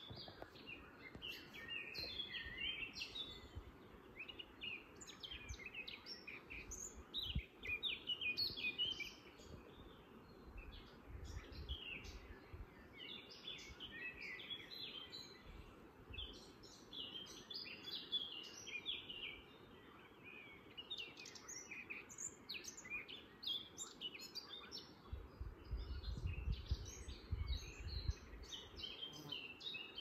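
Wild songbirds singing in a dense chorus of short, high chirps and phrases that overlap throughout, over a faint steady outdoor background. A soft low rumble comes in near the end.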